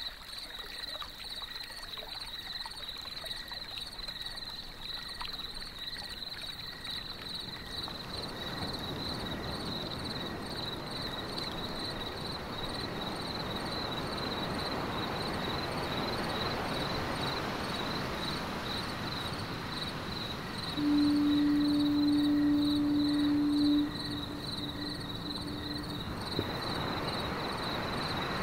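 Steady rumbling noise of vehicles and machinery on a ferry's car deck, growing louder partway through, with a faint high pulsing whine throughout. About three-quarters of the way in comes one long, low blast of the ferry's horn lasting about three seconds, then trailing off.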